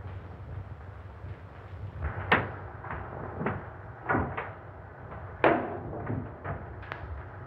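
A string of sharp knocks, evenly spaced at a bit under two a second at first and then irregular, each with a short echo, over the steady hum and hiss of an old black-and-white film soundtrack.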